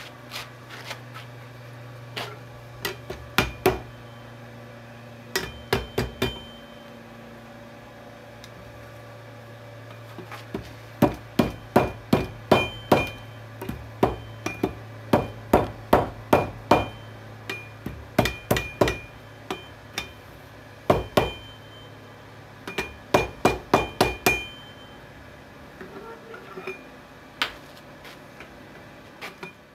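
Hammer blows on a 66 lb steel anvil while forging a railroad spike into a knife: runs of rapid strikes with pauses between them, each blow ringing briefly. A steady low hum sits underneath and fades out about two-thirds of the way through.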